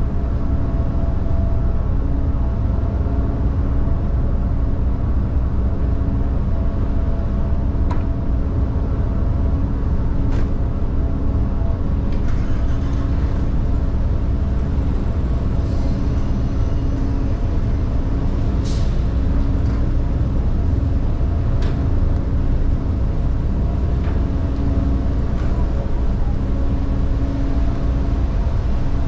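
Car ferry's engines running steadily, a low rumble with a constant hum, heard from the open deck, with a few faint clicks.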